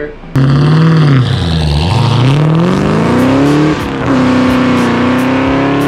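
Ford Mustang V8 running hard under acceleration: the revs dip, then climb, drop suddenly at a gear change about four seconds in, and climb again.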